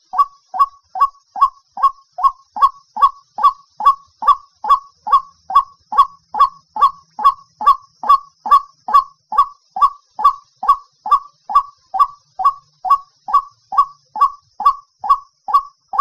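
White-breasted waterhen giving its 'ruak' call: a fast, even series of short pitched notes, about two and a half a second, repeated without a break.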